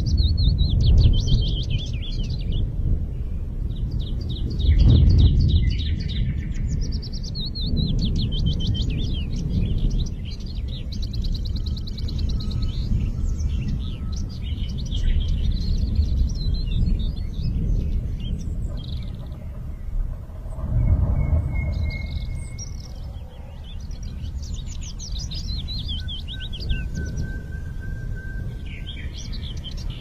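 Red-breasted parakeets calling: repeated bursts of fast, high chattering notes, each lasting a few seconds, over a steady low rumble. A couple of brief level whistles come in during the second half.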